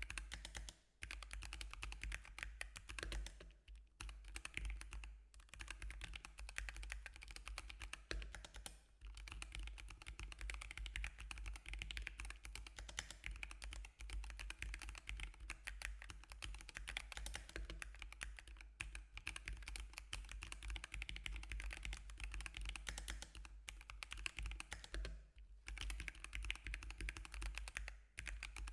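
Fast, continuous typing on a Zeeyoo 65% mechanical keyboard: a dense run of keystroke clicks, broken by a few brief pauses.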